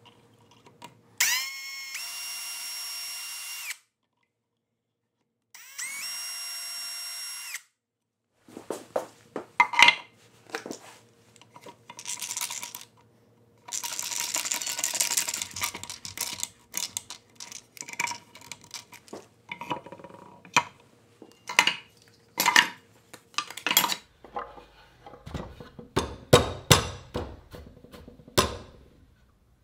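A cordless drill spinning up and running steadily twice, about two seconds each, in the first eight seconds. After that comes a quick series of clicks, knocks and clatter from parts and tools being handled.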